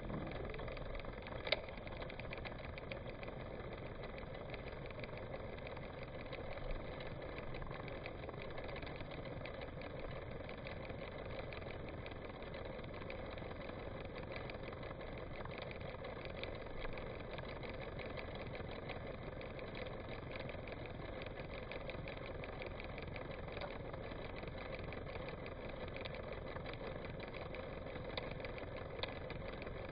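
An engine idling steadily with an even, rapid pulse, a few seconds after it has started.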